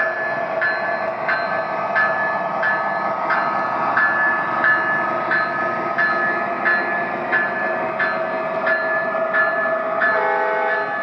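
MTH O-gauge model diesel freight train running past on three-rail track, with a steady rolling rumble and a sharp ringing strike about three times every two seconds. Near the end, the locomotive's sound-system horn starts to blow a chord.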